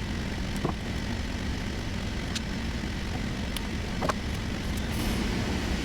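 A steady low rumble of room noise, like an air conditioner running, with a few light clicks, the sharpest about four seconds in, as small printer parts are handled during disassembly.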